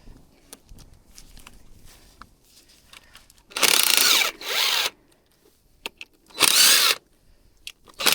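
Power drill-driver running in short bursts, its motor whirring up and down in pitch, as bolts are undone to open up an ATV engine. There is a longer burst about three and a half seconds in, then a shorter one, and another starts right at the end, with small clicks of parts being handled in between.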